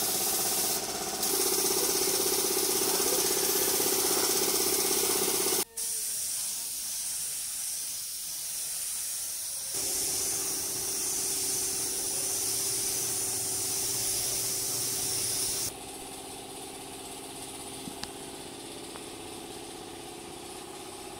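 A gravity-feed air spray gun hissing as it sprays paint, with a steady machine hum underneath. The hiss stops for a few seconds about a third of the way in, starts again, and drops away for the last several seconds, leaving the hum.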